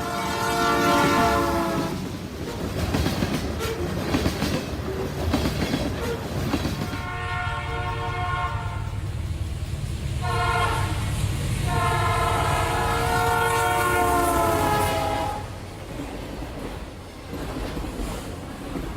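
Real train sound: a locomotive's multi-note air horn blows a long blast, then, over the running rumble and wheel clatter of the train, a long, a short and a final long blast, in the manner of a grade-crossing signal. The sound drops off suddenly at the end.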